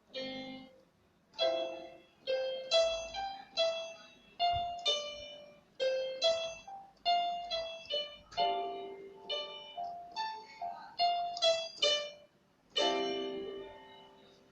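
Piano-like notes played on a software instrument from a MIDI keyboard: a run of single notes and short chords, each struck sharply and fading, ending on a chord that rings longer.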